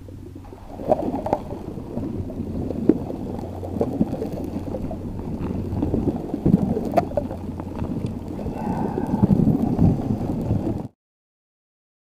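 Underwater ocean ambience: a dense, muffled rumble and gurgling of water, with scattered faint clicks and a brief higher tone near the end. It cuts off suddenly about eleven seconds in.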